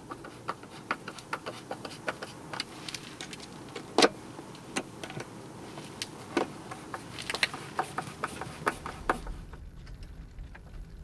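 Scattered light clicks and knocks of hands at work on the switch box and cables. The sharpest click comes about four seconds in, over a steady hiss that drops away near the end.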